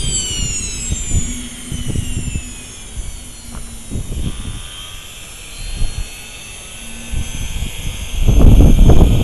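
Small model turbojet engine of an RC truck spooling down after shutdown: a high whine falling steadily in pitch over the first few seconds, then settling to a steady high hum. Loud low rumbling comes in near the end.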